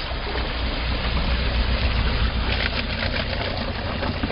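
Chevrolet Niva's four-cylinder petrol engine running at low revs as the SUV wades into a river, a steady low rumble. Water sloshing and splashing around the body becomes audible from about halfway.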